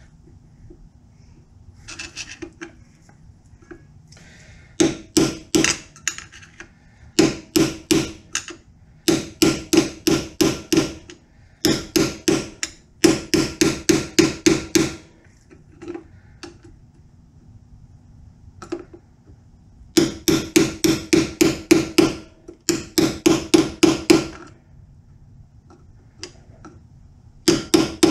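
A hammer taps the end of a screwdriver to bend down the tab of a locking washer against the transmission sprocket nut, metal on metal. The blows come in quick runs of about five a second, with short pauses between runs.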